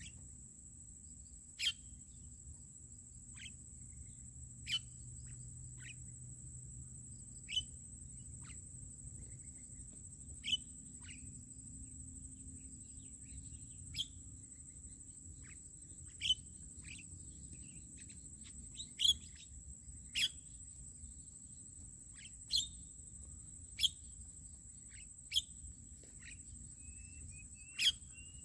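Sharp, short starling call notes repeated every couple of seconds, over a steady high-pitched insect drone.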